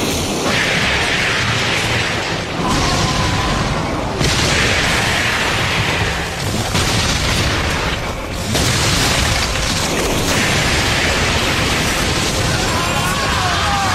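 Anime sound effects for a giant monster: heavy, continuous rumbling booms, with a harsh rushing noise surging four times, each surge lasting a couple of seconds.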